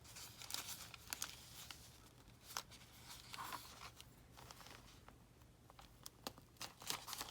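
Faint, scattered rustles and light taps of paper pages being handled and pressed into place while binding a junk journal signature.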